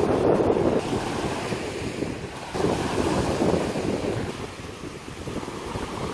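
Small waves breaking and washing up over a sandy beach, with wind on the microphone. The wash surges twice, once at the start and again about two and a half seconds in, then eases off.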